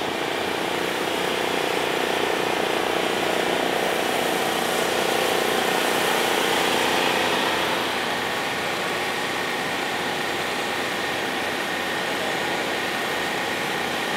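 Steady engine noise, one or more vehicle engines idling. It drops slightly about eight seconds in.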